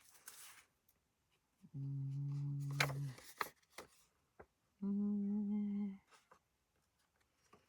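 A person humming two long, steady notes, the second a little higher than the first, with a few light clicks in between.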